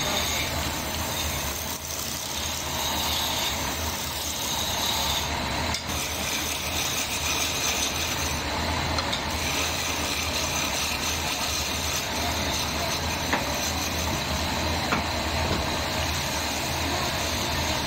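Wood lathe motor running at a steady hum while a hand-held gouge cuts the spinning wooden workpiece with a continuous hissing scrape.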